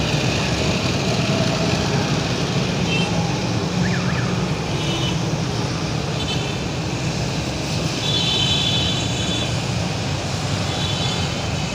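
Steady road traffic noise from motorcycles and cars passing on the roundabout road. Short, high chirps come and go several times over it.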